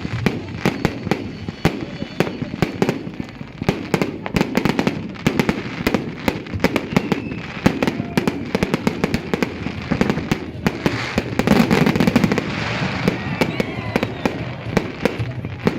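Fireworks going off in a rapid, irregular run of sharp bangs and crackles, several a second, growing thickest and loudest about three-quarters of the way through.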